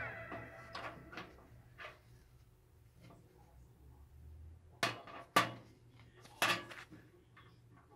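Small hard metal parts clinking on a workbench: a few faint clicks, then three sharp clinks in the second half, the sound of motherboard back-panel connectors being worked off. A plucked guitar chord from the background music rings out at the very start.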